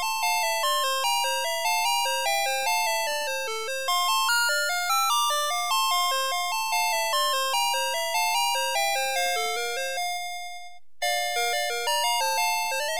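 Navystar Press 'N Go toy fire truck's electronic sound chip playing a beeping melody, note by note, each note fading after it sounds. About ten seconds in the tune ends on a held note, stops for just under a second, then starts again.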